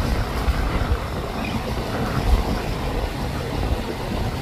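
Twin outboard motors of a center-console boat running at speed through choppy water, heard as a steady rumbling drone mixed with wind and water noise.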